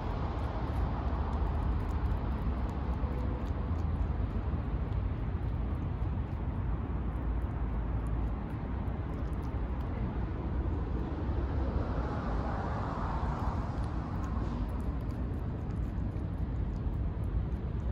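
Steady low rumble of distant traffic, swelling briefly about twelve seconds in.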